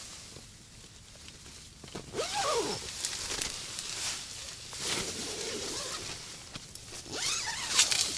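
Rustling and scuffing of nylon tent fabric and a padded winter suit as a person kneels and shifts about inside a small ice-fishing tent, with a few short sliding squeaks about two seconds in and again near the end, and sharp clicks near the end.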